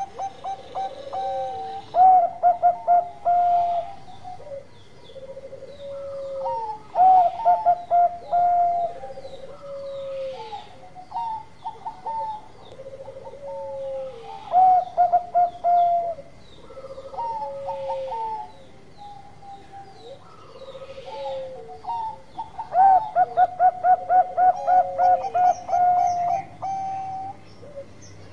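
Bangkok-bred zebra dove (perkutut) singing its cooing song again and again: each phrase is a run of quick, clipped notes followed by a lower drawn-out coo, with the longest run of clipped notes near the end.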